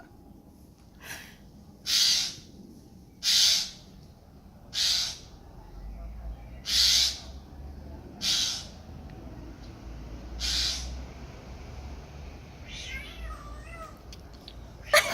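A jay mimicking a cat, giving a string of short, harsh meow-like calls about one every second and a half.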